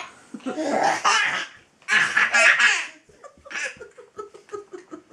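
Toddlers laughing hard: two long bursts of belly laughter, then a run of short, quick giggles near the end.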